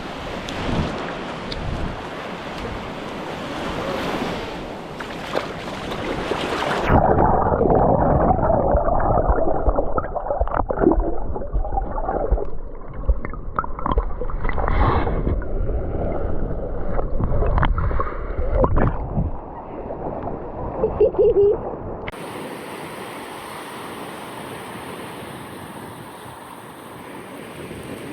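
Surf washing on a sandy beach with wind on the microphone. The sound changes abruptly twice, about seven seconds in and again about twenty-two seconds in: the middle stretch is louder and duller, with a few knocks.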